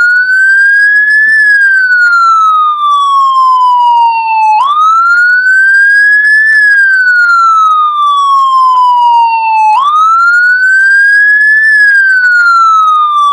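Police siren sounding a slow wail. Each cycle climbs quickly to a high pitch and then falls slowly, repeating about every five seconds, three times over. It stops abruptly at the end.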